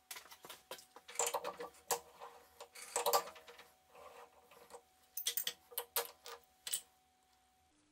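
Irregular metallic clicks and clinks from hands working at a lathe's four-jaw chuck, in short clusters with quiet gaps, as the finished bored plate is freed from the jaws.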